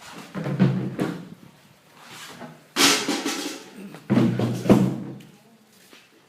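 Music with drums: three loud, ringing drum strikes or short drum phrases, about half a second in, near the middle and just after four seconds.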